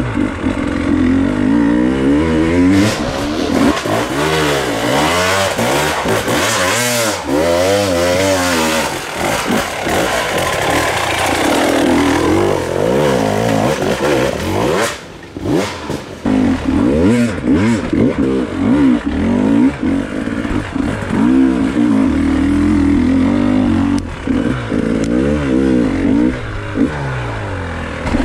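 Off-road dirt bike engine revving up and down over and over as the throttle is worked in short bursts, with knocks mixed in; the engine note drops away briefly about halfway through.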